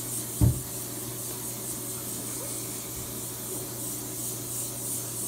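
Aerosol hairspray can spraying into hair in one long, unbroken hiss. A single short thump sounds about half a second in.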